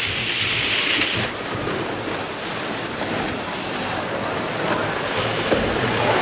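Water splashing up around a log flume boat as it runs out of a chute into the water, the spray loudest for about the first second, then water rushing steadily along the flume channel around the boat.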